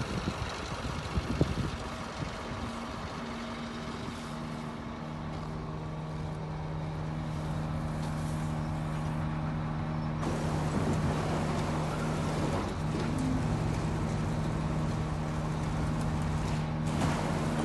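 Scania R-620 truck's V8 diesel engine running at a steady speed, a steady hum that grows stronger about five seconds in and fuller about ten seconds in. Footsteps crunch on gravel at the start.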